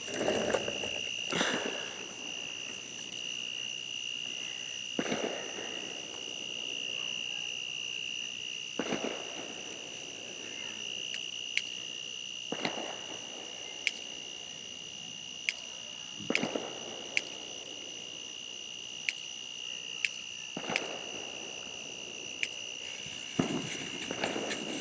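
Steady high-pitched trilling of night insects, held at several fixed pitches. A dozen or so short sharp pops and duller thumps fall irregularly every one to four seconds.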